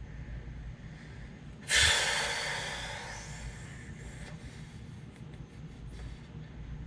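A man's heavy breath out close to the microphone, starting suddenly about two seconds in and fading over a second or so. A few faint clicks follow near the end.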